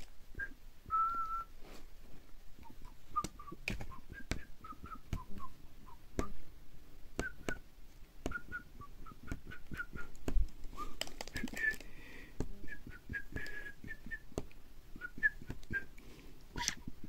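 Scattered short, high whistled notes and chirps, one held a little longer about a second in, with sharp clicks and taps throughout.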